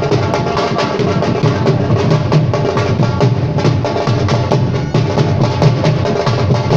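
Live music carried by fast, dense hand drumming, with sustained melodic tones underneath.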